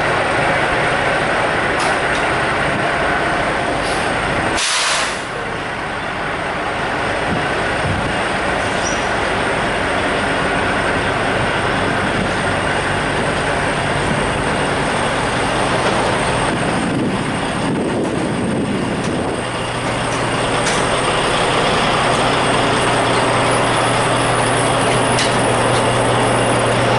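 Diesel semi-truck engines running at a truck-stop fuel island, a steady rumble with a short burst of hiss about five seconds in. A low, steady engine hum grows stronger about twenty seconds in.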